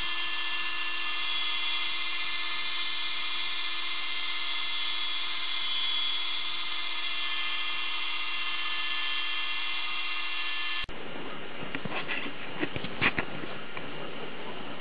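CNC router spindle running with a steady high-pitched whine. It stops abruptly about eleven seconds in, followed by a few sharp knocks and clatter.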